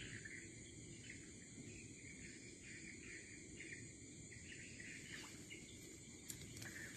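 Faint night insect chorus: a steady high-pitched drone with a quick chirp repeating several times a second, and a few light clicks near the end.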